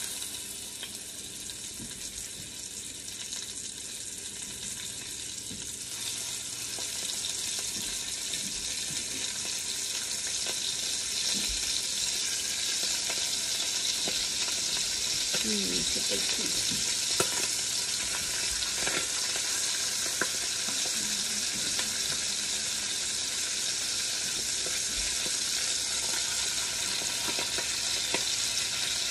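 Chicken pieces frying in hot fat in an enameled cast iron Dutch oven, a steady sizzle being browned. The sizzle grows louder over the first several seconds, then holds steady.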